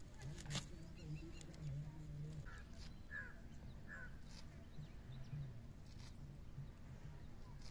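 A bird calls three times in short chirps about midway through, over a faint low murmur that comes and goes, with soft clicks of a knife cutting fenugreek leaves.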